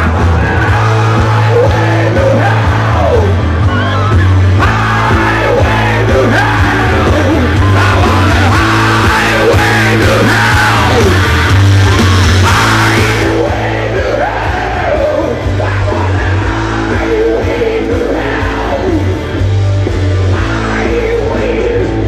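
Loud live rock music with a heavy bass line and a singer, with yelling over it. It eases slightly in loudness and brightness a little past halfway.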